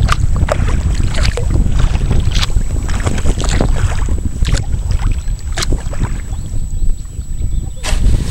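Wind buffeting the microphone in a steady low rumble, with irregular splashes of water from kayak paddle strokes through shallow water.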